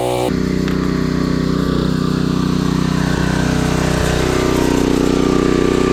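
Motocross bike engine running at a steady idle.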